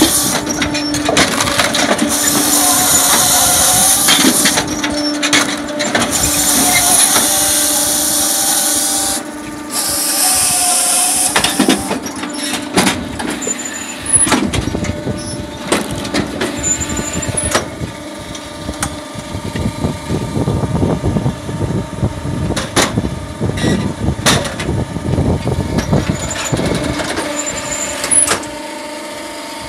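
Homemade electric firewood processor at work. Over the first dozen seconds its saw cuts through logs in repeated loud bursts, each starting and stopping sharply over a steady machine hum. After that the machine runs more quietly, with scattered knocks and clunks of wood.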